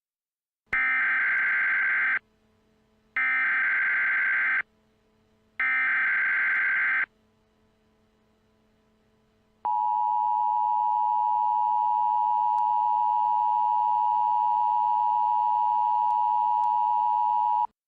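Emergency Alert System SAME header: three short bursts of digital data tones, each about a second and a half long and about a second apart. These are followed by the EAS two-tone attention signal, a steady dual tone held for about eight seconds that cuts off abruptly, marking the activation of an emergency alert.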